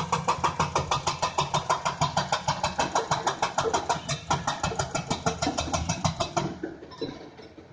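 Hyundai excavator working: engine drone under a rapid, even mechanical clatter of about seven strokes a second. The clatter drops away about six and a half seconds in, leaving a quieter engine noise.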